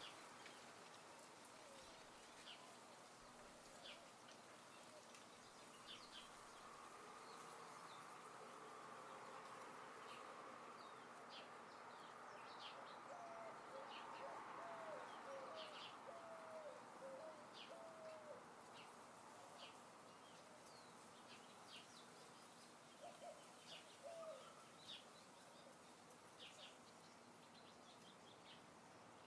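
Faint outdoor ambience: a soft, steady wind hiss with scattered short, high bird chirps throughout, and a run of lower, repeated bird notes in the middle and again briefly near the end.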